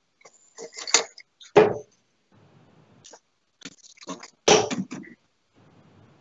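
A few short, scattered voice sounds, such as a cough or throat clearing, with light clicks between them, heard over webcam microphones.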